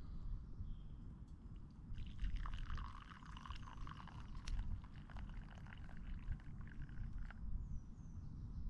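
Cowboy coffee poured from a metal camp pot into a wooden cup: a faint trickle that starts about two seconds in and stops shortly before the end.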